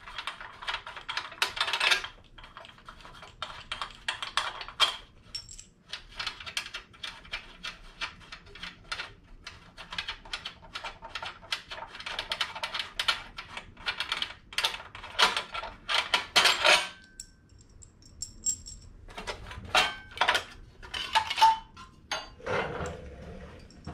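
A hand socket ratchet clicking in quick runs as the cylinder head bolts on a Snowbird snowblower engine are backed out, with metal clinks of the loose bolts and tools.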